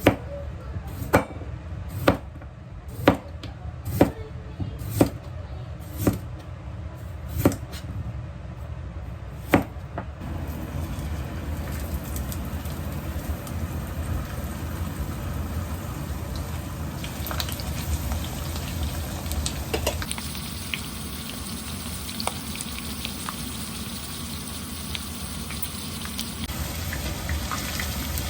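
About nine sharp knocks, roughly one a second, over the first ten seconds; then food frying in a pan with a steady sizzle for the rest.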